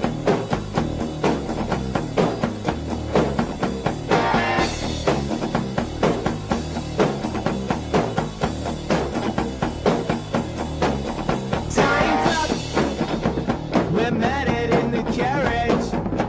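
Rock music with a steady, driving drum beat.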